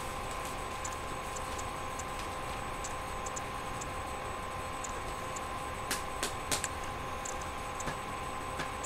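Computer mouse clicking: faint scattered ticks, then a few sharper clicks about six seconds in, over a steady electrical hum with several fixed tones.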